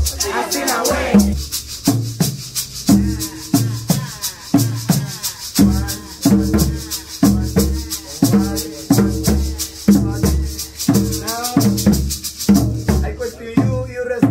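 Tall hand drums struck in a steady, driving rhythm, with a pair of round maracas shaking fast over them, and voices calling out at times. The maracas stop shortly before the end.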